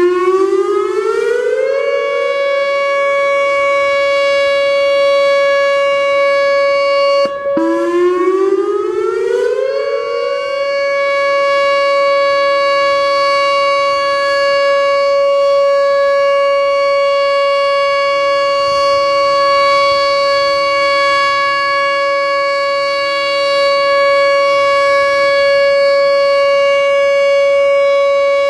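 Whelen WPS-2910 electronic outdoor warning siren sounding its alert tone during a weekly test. The tone rises in pitch for about two seconds and then holds steady and loud; about seven seconds in it cuts out for an instant, rises again and settles back on the same steady pitch.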